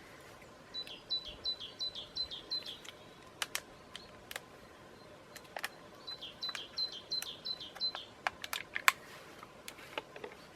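A small songbird singing two quick phrases, each a rapid series of about seven repeated high two-part notes, first about a second in and again halfway through. Sharp clicks and taps of hand tools and stove parts being handled come between the phrases, the loudest near the end.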